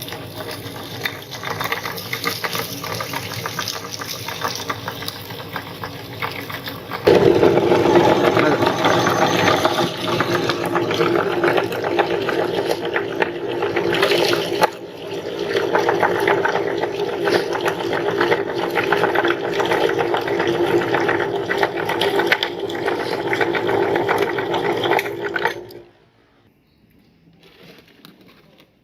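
Electric meat grinder running, with a dense crackle over the motor hum as it grinds popcorn. It gets louder about a quarter of the way in and cuts off suddenly near the end.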